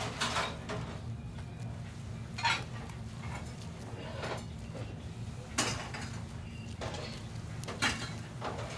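Kitchen utensils and dishes clinking and knocking, a few separate clatters every couple of seconds, over a steady low hum.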